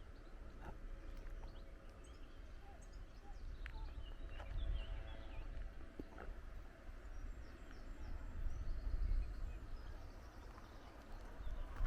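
Outdoor ambience dominated by wind buffeting the microphone as a low, gusty rumble, with small birds giving short chirps, mostly in the first half.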